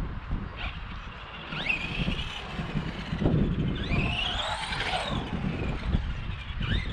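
Arrma Granite 4x4 Mega RC truck's electric motor and drivetrain whining as the throttle is worked, rising in pitch twice, the second time a longer climb and fall. A low rumble sits underneath.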